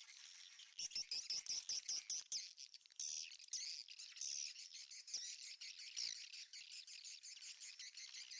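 Swiftlets twittering in a dense run of high chirps, with a quick series of sharp clicks about a second in.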